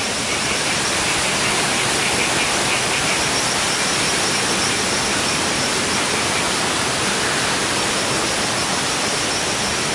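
A steady, loud rushing noise that holds at one level without a break.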